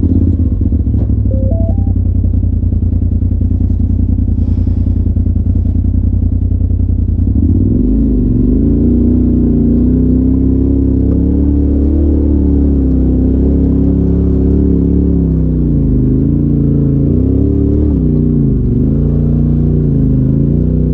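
Polaris RZR side-by-side engine heard from the cab, running steadily at low revs. About seven seconds in the revs rise, and then they go up and down as the throttle is worked.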